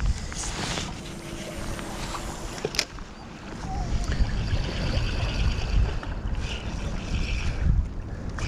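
Strong gusty wind buffeting the microphone, with sea surf washing against shore rocks beneath it and a few small clicks.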